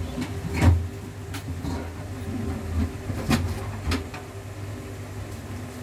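A mouse trapped in shallow water in a metal tub, splashing and knocking against the tub's side as it tries to leap out: a few short sharp splashes and knocks, the loudest just under a second in. A steady low hum runs underneath.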